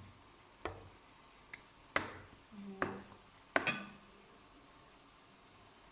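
Kitchen bowls and utensils clinking and knocking while chicken pieces are moved between bowls: about six sharp knocks in four seconds, a few ringing briefly.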